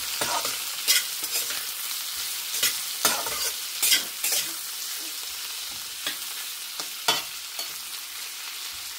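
Sliced spiny gourd (kantola) and onions sizzling in oil in a metal kadhai, stirred with a metal spatula that scrapes and knocks against the pan. The scrapes come every second or so at first and grow fewer in the second half.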